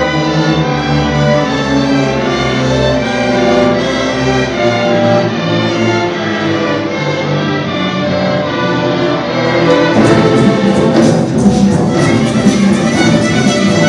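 String orchestra playing live: violins, cellos and double basses bowing held notes, growing louder and fuller about ten seconds in.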